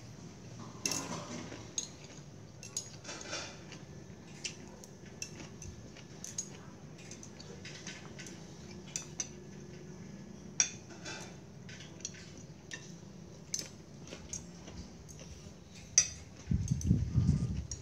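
Eating utensils tapping and clinking against ceramic plates and bowls in scattered, irregular clicks during a meal. Near the end a louder, low, uneven rumble comes in.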